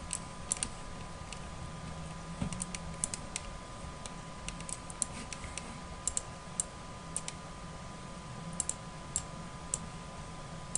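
Irregular clicks of a computer keyboard and mouse, some in quick pairs, over a faint steady electrical hum.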